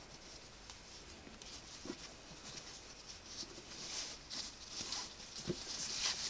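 Faint rustling and scratching of a cardboard gift box and its paper wrapping being handled, with a few soft taps, growing louder near the end.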